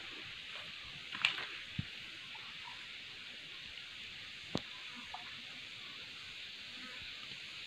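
A hand feeling through a shallow muddy pool of stream water, searching for shrimp, with faint splashes and a sharp click about four and a half seconds in, over a steady faint hiss.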